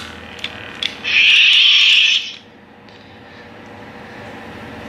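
Light metallic clicks of the pommel threading onto the lightsaber hilt, then about a second in a loud hiss lasting just over a second and cutting off sharply, from the hilt's small speaker as its sound board powers up when the pommel closes the circuit.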